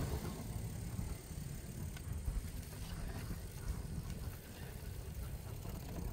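Wind rushing over a phone microphone while riding a cargo e-bike: a low, uneven rumble, with a few faint clicks.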